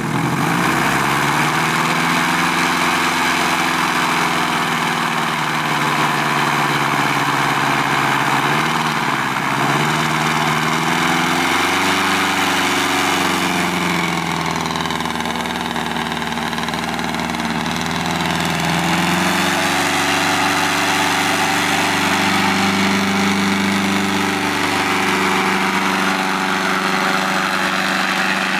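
Helicron propeller car's engine running and its front propeller spinning as the car drives slowly, a steady drone whose pitch rises and falls several times with engine speed.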